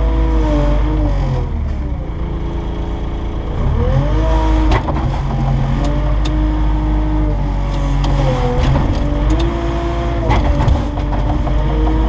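Zeppelin ZL 6B wheel loader's diesel engine heard from inside the cab, working the hydraulics as the grab bucket tips manure: the engine speed sags about a second in and picks up again near four seconds, then holds with small wavers. A few sharp knocks come through over the engine.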